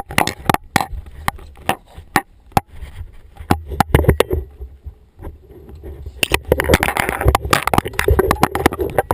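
Scuba gear heard underwater: sharp clicks and crackles throughout, with a burble of exhaled regulator bubbles from about six seconds in, over a low rumble.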